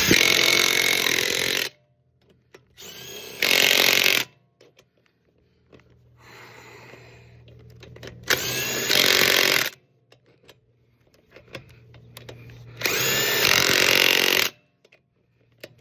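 Impact wrench tightening lug nuts on a 2020 Ford Transit van wheel, in four loud hammering bursts of one to two seconds each, a few seconds apart. A quieter run-up comes before most bursts as the nut spins down before hammering tight.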